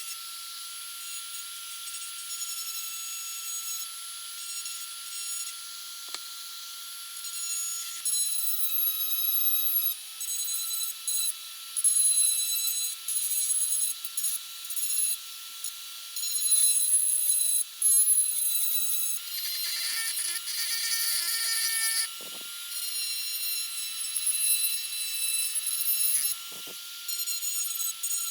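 A small high-speed power tool whining steadily, with a harsher high-pitched sound that comes and goes in irregular bursts as it works against metal. There are a few short knocks near the end.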